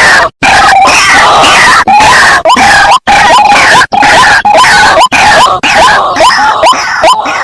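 White-breasted waterhen calling loudly: a dense, harsh chorus that from about halfway settles into a run of short rising notes, two to three a second, broken by a few brief cuts to silence.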